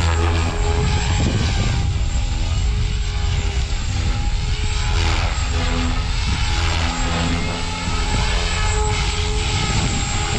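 Synergy 516 electric RC helicopter in flight, its Scorpion 4020 brushless motor and rotor blades whining and whirring steadily. The pitch drifts up and down as it manoeuvres.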